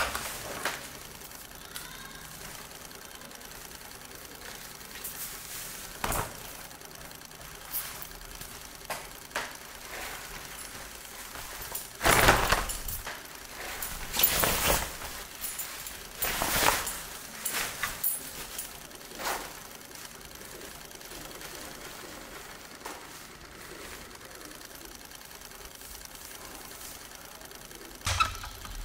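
Several brief rustles of cloth as jeans are pulled on, loudest in the middle, over a steady faint mechanical whirring bed; near the end a short swish as curtains are moved.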